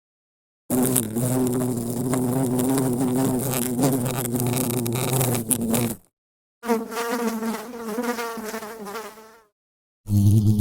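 Buzzing of a flying insect in two separate effects: a steady buzz lasting about five seconds, then, after a short gap, a higher, wavering buzz that fades out.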